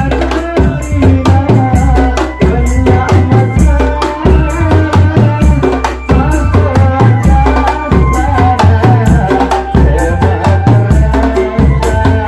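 Loud drum band music: fast, dense drum and percussion strokes over a deep stepping bass and a melody line.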